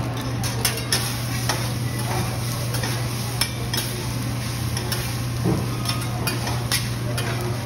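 Two metal spatulas clacking and scraping on a teppanyaki steel griddle at an irregular pace as fried rice is chopped and turned, the rice sizzling. A steady low hum runs underneath.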